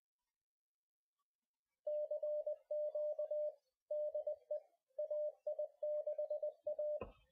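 Morse code: a single steady mid-pitched tone keyed on and off in short and long elements, in groups with short gaps. A brief thump near the end.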